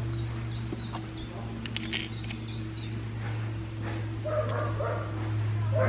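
Dogs barking and yelping, over a steady low hum. A sharp metal clink of the moka pot being put together comes about two seconds in.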